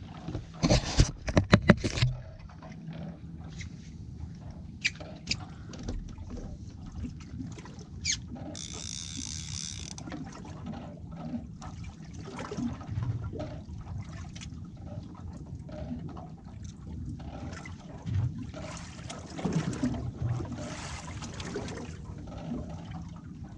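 A quick run of loud knocks and rattles on a fibreglass boat deck in the first two seconds, then steady low boat and water noise with scattered small clicks and a short hiss about nine seconds in.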